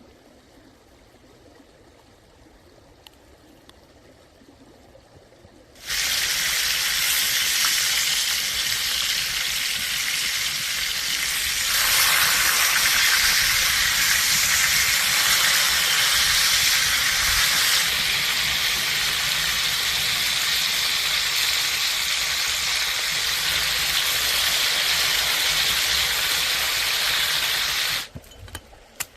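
Food sizzling loudly in hot oil in a pan. The sizzle starts suddenly about six seconds in, after a faint quiet stretch, grows a little louder partway through, and cuts off shortly before the end.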